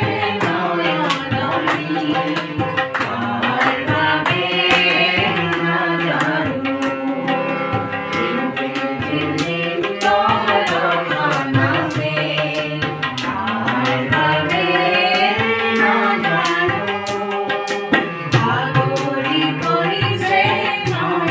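Tabla played live with a harmonium and a singing voice, the tabla strokes keeping a steady rhythm.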